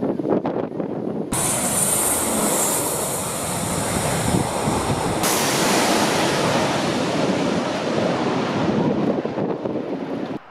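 Aircraft engine noise with wind on the microphone. About a second in it abruptly turns hissier, with a whine, and it changes again about five seconds in.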